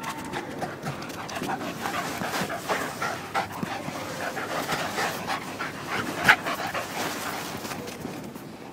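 Dogs panting fast and hard from running, close to the microphone, with one sharp louder sound about six seconds in.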